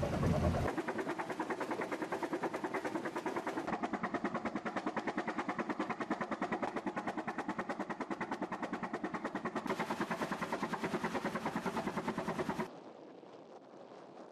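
Three-cylinder Callesen 427 CO marine engine running with a fast, even beat of sharp exhaust pulses. It stops suddenly about two seconds before the end, leaving only a faint background.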